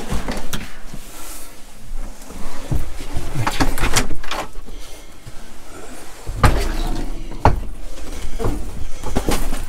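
Handling noises: a run of knocks and thumps with rustling, as a fitted carpet is pulled loose and carried and a door is handled. The loudest two thumps come about six and a half and seven and a half seconds in.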